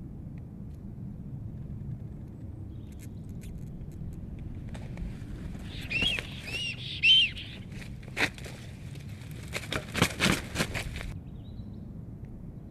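Black storks scuffling on their stick nest: a run of sharp knocks and wing flaps, heaviest a little after the middle, with a few short high chirping notes just before them, over a steady low rumble.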